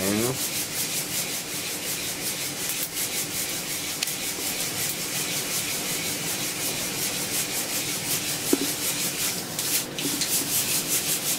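Coffee beans rustling and rattling inside a lidded mesh hand roaster shaken back and forth over a gas flame, in an even rhythm of a few shakes a second. A few faint crackles come through, the beans well into the second crack of a dark roast.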